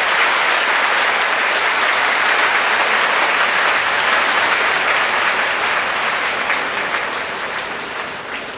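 Large arena audience clapping, a dense steady applause that fades over the last couple of seconds.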